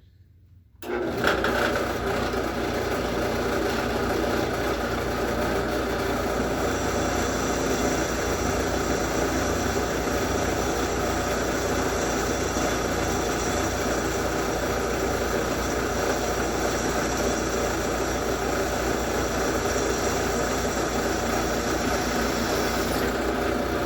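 A drill press motor starts about a second in and runs steadily, its bit cutting a hole through a metal anchor plate with cutting oil.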